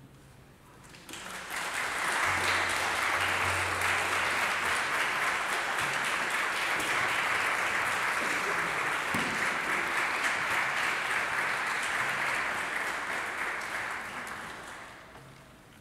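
Audience applauding: clapping starts about a second in, holds steady, and dies away near the end.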